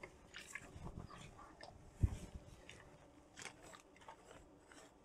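Faint scattered clicks and taps of tools and the circuit board being handled on a workbench, with one louder knock about two seconds in.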